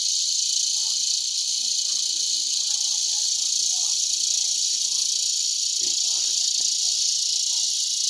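Chorus of cicadas in the trees, a loud, steady, high-pitched buzzing hiss that holds level throughout without pulsing.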